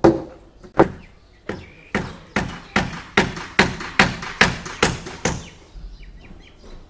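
A run of about a dozen sharp knocks or strikes from construction work, speeding up to a steady rhythm of roughly two and a half a second, then stopping about five and a half seconds in.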